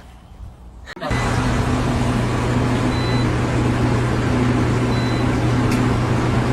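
A steady mechanical hum with a loud, even rushing noise over it, starting abruptly about a second in.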